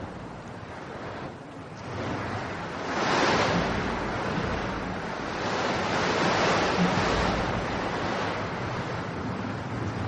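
Whooshing storm sound effect: a steady rushing noise that swells twice, about three seconds in and again around six seconds.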